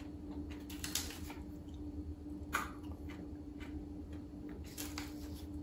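Crisp crunching and cracking of homemade erythritol sprinkles handled at close range: a few sharp cracks spread through, the strongest about a second, two and a half seconds and five seconds in. The crunch is the sign that the sprinkles have dried out fully after sitting at least 24 hours. A steady low hum runs underneath.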